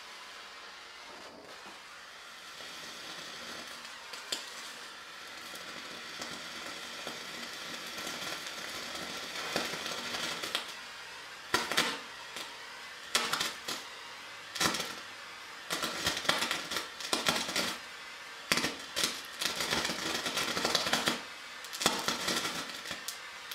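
Handheld gas torch hissing over sawdust soaked in perchloric acid. From about ten seconds in, the mixture reacts energetically in repeated sharp, irregular pops and bursts.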